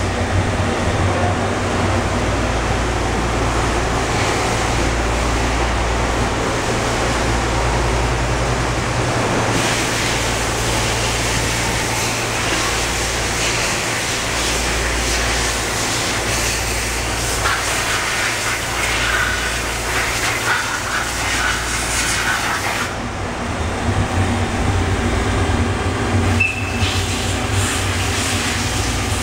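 Kia SKT-21LM CNC turning center running, a steady low machine hum with a whirring noise over it, amid the general din of shop machinery.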